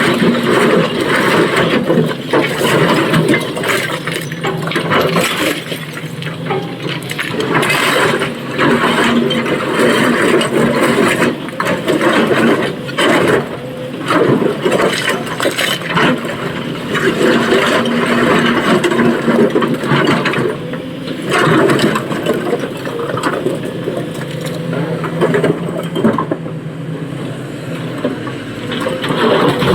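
SANY excavator working: its diesel engine running steadily, with frequent clattering knocks throughout.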